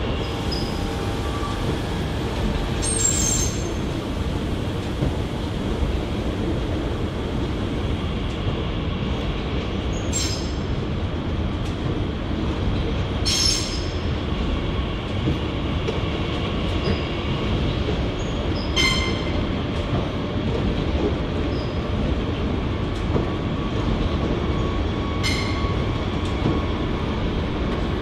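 A train rolling on the rails with a steady low rumble, broken by about five brief high-pitched wheel screeches spread through it.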